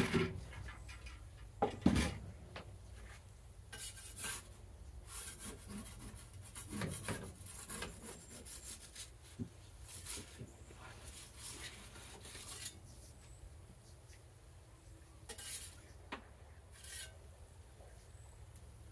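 The metal door of a Gozney Dome pizza oven knocks twice as it is lifted off the oven mouth. Then a metal pizza peel scrapes across the oven's stone floor in short, uneven strokes as the pizza is turned, with a few more scrapes near the end.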